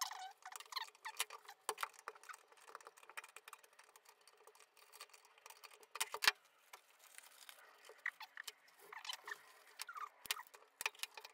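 Small irregular clicks, clinks and rustles of gloved hands handling locking pliers and a wrench on fibreglass, with a sharper knock about six seconds in. It sounds thin, with no low end.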